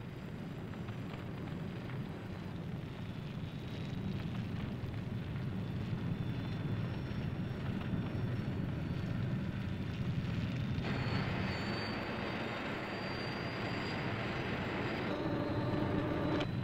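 Low, steady rumble of an underground fire, slowly growing louder. A hissing layer comes in about eleven seconds in and drops away about four seconds later.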